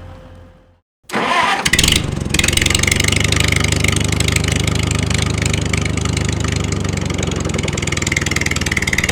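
An engine starting after a short silence about a second in, then running steadily.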